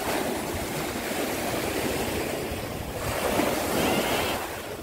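Small sea waves breaking and washing up the sand, a steady rush that swells louder about three seconds in, with wind on the microphone.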